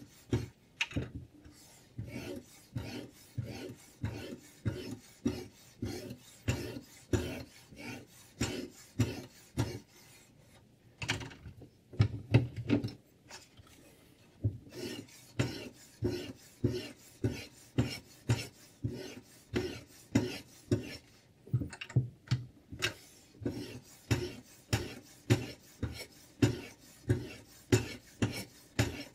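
Sharpening stone on the guide rod of a Sytools K09 guided knife sharpener scraping back and forth along a clamped steel blade, about two strokes a second. There is a short pause with a couple of knocks about ten seconds in.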